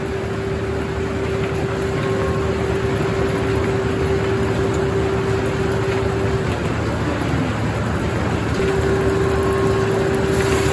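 Circular sawmill running steadily, a loud, dense machine noise with a steady tone through it that drops out for about two seconds past the middle.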